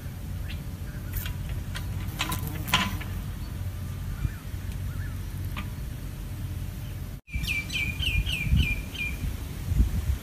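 Songbird calls: a few scattered thin chirps, then, about three-quarters of the way in, a quick run of about six sharp notes, each dropping in pitch. A low rumbling background noise sits under them.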